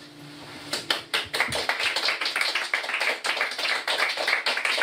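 A small group of people clapping, starting about three-quarters of a second in and carrying on steadily.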